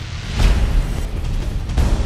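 Background music with a heavy low bass, punctuated by two sudden booming hits with a whoosh, one about half a second in and another near the end.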